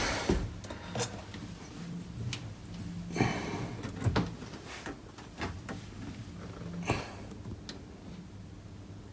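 Light handling knocks and clicks of a metal kitchen tap's swivel spout being worked back onto the tap body, a few scattered taps over faint rustling.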